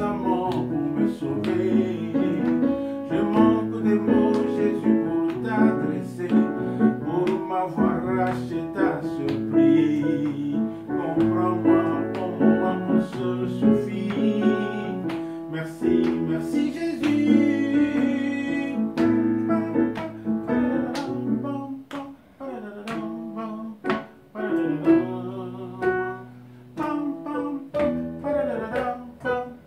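Music played on an electronic keyboard: quick plucked-sounding melody notes over a bass line that moves to a new note every second or two.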